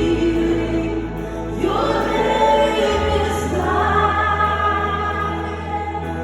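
Choir singing a gospel worship song in long held notes over a steady low bass line, which moves to a new note about three seconds in.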